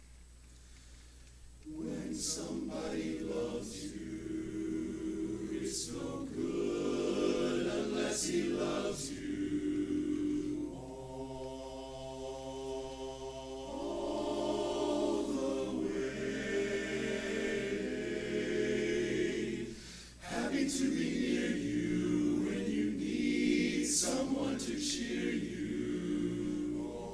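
Barbershop chorus singing a cappella in close harmony. It is hushed for the first couple of seconds, the voices swell in about two seconds in, and they break off briefly about twenty seconds in before singing on.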